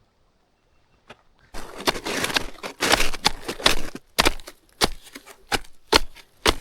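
Snowshoe footsteps crunching in wet snow, starting about a second and a half in, with a step landing roughly every half second or so.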